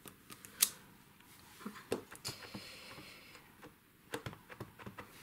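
Small clicks and taps of a clear acrylic stamp block being pressed onto card stock and lifted off again, with one sharp tap about half a second in.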